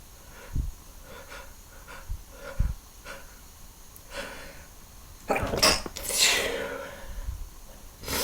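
A man sneezing: a run of short catching breaths, then a full, loud sneeze let out about five seconds in, trailing off into a breathy exhale.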